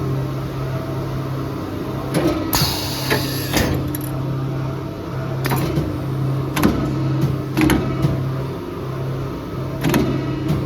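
Automatic CNC tube bender at work. A steady low machine hum drops out briefly now and then, under a series of mechanical clunks and clicks, with a short hiss about three seconds in.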